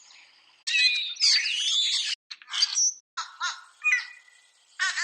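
Recorded songs and calls of several black-plumaged birds of the blackbird family, played one after another. First comes a harsh, noisy, squeaky song, then a short whistle, then a quick run of repeated notes.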